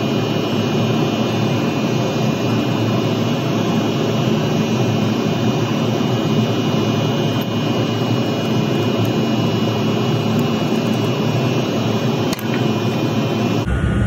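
Steady, loud rushing machine noise running without a break, with a faint sharp click about twelve seconds in; the noise changes abruptly just before the end.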